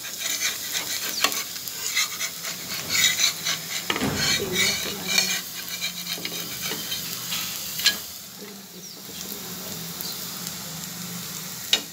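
A dosa sizzling on a hot pan, with a metal spatula scraping and clicking against the pan. The scraping is busiest for the first eight seconds or so, then the sizzle goes on more quietly, with a sharp click about eight seconds in and another near the end.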